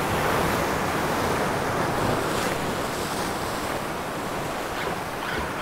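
Surf breaking and washing over rocks, a steady rush of water, with wind buffeting the microphone.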